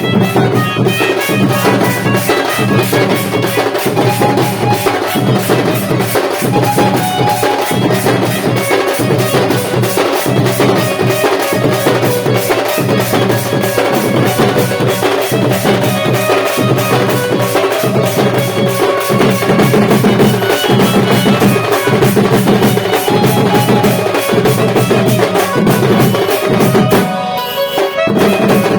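A band party playing loud music: fast, dense drumming with a melody line over it. The low beat drops out briefly near the end.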